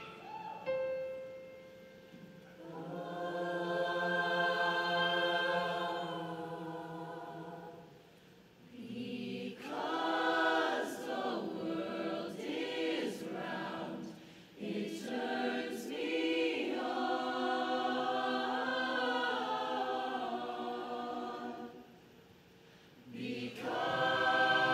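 Mixed-voice high school show choir singing in harmony: a single steady note near the start, then long held chords, a stretch of short rhythmic notes in the middle, and held chords again. The singing drops away briefly near the end and comes back louder.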